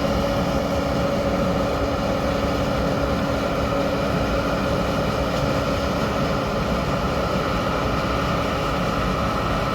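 Tractor diesel engine running at a steady speed: an even drone with a constant whine over it.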